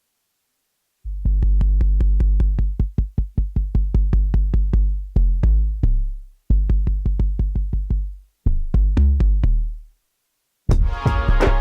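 Electronic hip-hop beat played from a Native Instruments Maschine, using sounds from the Golden Kingdom expansion. A deep sustained bass runs under fast, even ticks. It cuts out twice for short gaps, then goes silent, and the full beat with more instruments comes in near the end.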